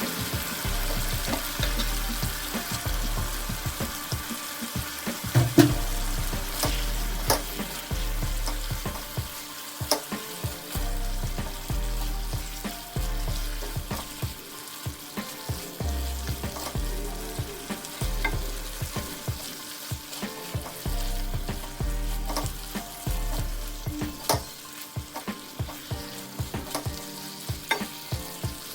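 Food sizzling as it fries in a pan while it is stirred. A utensil clicks and knocks against the pan many times, the loudest knock about five and a half seconds in.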